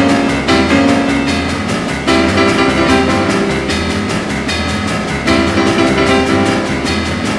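Instrumental music with a steady beat, its chords and bass line changing every second or two.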